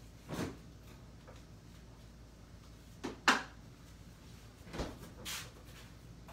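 A few separate kitchen knocks as a spoon and bowl are handled while more sweet relish goes into the tartar sauce. The sharpest knock comes about three seconds in, with softer ones near the start and around five seconds.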